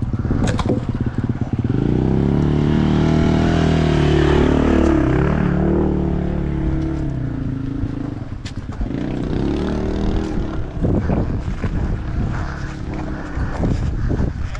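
Two-stroke dirt bike engine under way on a trail, revving up and down with the throttle. It is loudest for a few seconds near the start, then runs choppier and more uneven.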